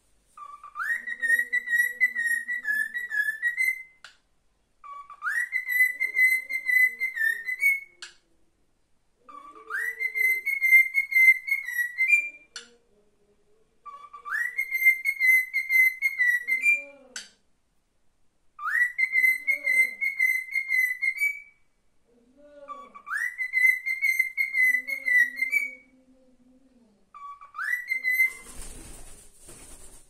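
Male cockatiel whistling the same short learned phrase seven times over, each one sweeping up in pitch and then held with a slight warble. The last phrase breaks off short and is followed by a brief flurry of wingbeats as the bird flies off.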